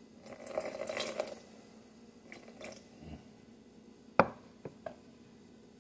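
A table knife scraping a runny seasoning mixture with seeds out of a small glass bowl, with a wet pouring, squishing sound in the first second or so. Then a few faint clinks, and one sharp knock just past four seconds in, followed by two lighter taps.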